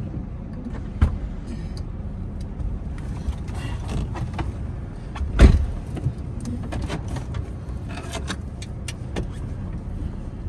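Chevy 1500 pickup idling, heard as a steady low rumble inside the cab, while the windshield wipers sweep intermittently. There is a loud thump about five and a half seconds in as a wiper stroke starts, and scattered light clicks later on.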